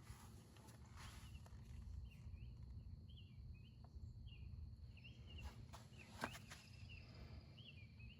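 Near silence: faint outdoor background with a low rumble and a run of short, high chirps from about two seconds in, with a couple of faint clicks.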